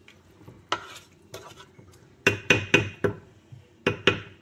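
Wooden spatula knocking against the side of a large aluminium cooking pot while stirring thick chicken curry. The knocks are sharp and separate, with a quick run of four in the middle.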